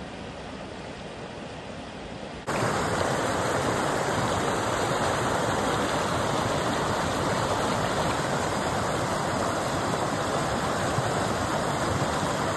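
Mountain creek water rushing over rocks, a steady, even rush. It is softer for the first couple of seconds, then jumps suddenly to the louder, close roar of a whitewater run.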